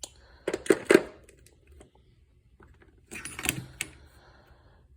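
Steel impact sockets clinking and rattling against each other in a tool box drawer as they are handled: two short bursts of sharp clicks, the first about half a second in and the second about three seconds in.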